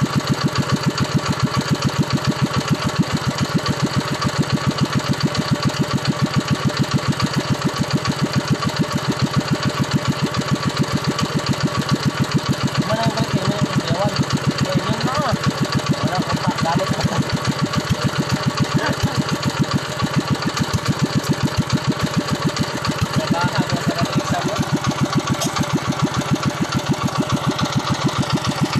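Honda single-cylinder petrol engine running steadily, its exhaust giving an even, rapid pulsing beat throughout.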